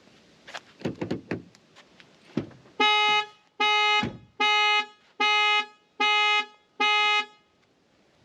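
A 2023 Cupra Born's alarm has been triggered and sounds through the car's ordinary horn: six short, evenly spaced horn blasts, about one and a half a second. A few knocks and clicks come before them.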